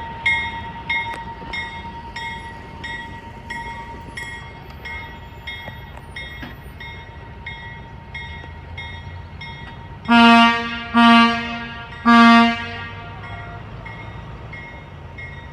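A locomotive bell rings steadily, about three strokes every two seconds, then the train sounds three loud short blasts on its horn or whistle.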